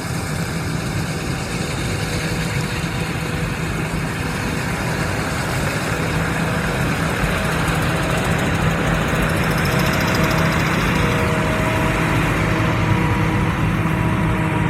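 Combine harvester running steadily in a soybean field, an even machine noise with a steady hum, growing slightly louder through the stretch.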